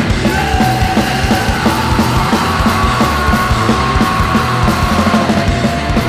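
Hardcore punk band playing full-on: distorted guitars, bass and steady pounding drums, with a long held high note over the top that ends about five seconds in.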